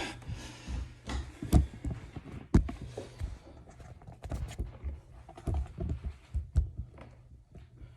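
Scattered knocks and thumps from handling and moving about at a bathroom vanity, about a dozen irregular sharp knocks with quieter rustling between them.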